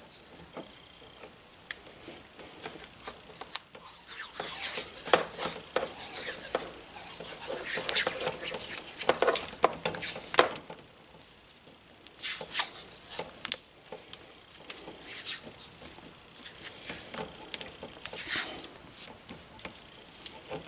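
Close hand-handling sounds of working on a small wired cable: irregular clicks, light knocks and rustling, scraping rubs, with a few longer stretches of hissy rustling.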